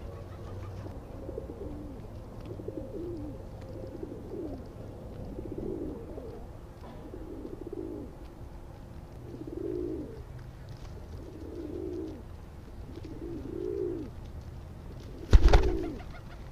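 Feral pigeons cooing close by, one low coo after another every second or two. About fifteen seconds in, a sudden loud flutter as a pigeon takes off with a clap of wings right at the microphone.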